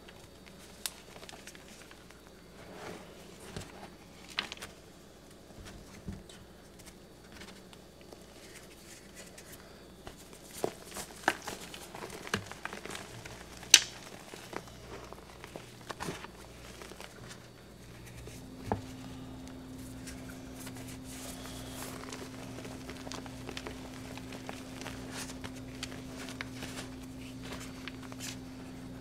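Hands squeezing and crumbling lumps of blue and green chalk in loose powder: soft crunching and crackling with sharp snaps now and then, most of them a little before the middle. About two-thirds of the way through, a steady low hum starts and keeps going.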